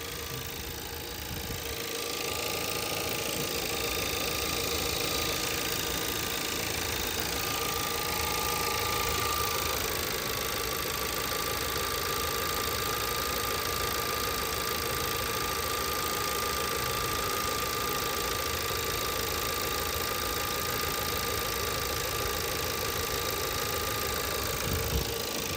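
2017 VW Passat's 1.8-litre four-cylinder engine idling steadily, with a steady whine on top; it is running smoothly, not yet showing the intermittent random misfire it suffers from.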